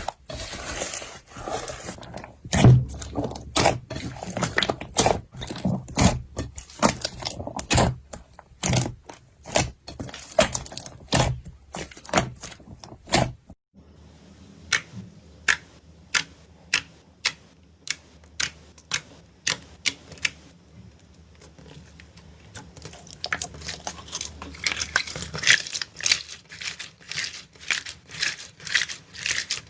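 Slime being pressed, poked and squeezed by hand, giving a steady run of sticky clicks, pops and crackles, about one or two a second. The sound changes abruptly about halfway through as another slime takes over.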